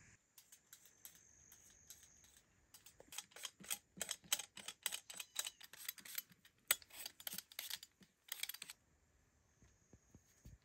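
Handheld vegetable peeler scraping the skin off a potato: a few scattered scrapes, then a fast run of short strokes, about four a second, stopping about nine seconds in.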